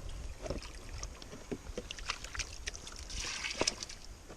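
Hands handling a water pump and its cage: scattered light knocks and clicks, with a brief rush of splashing water about three seconds in.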